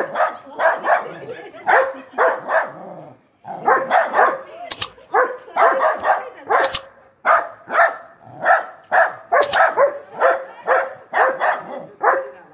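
Indian Spitz barking repeatedly in quick, high-pitched yaps, in runs broken by two short pauses.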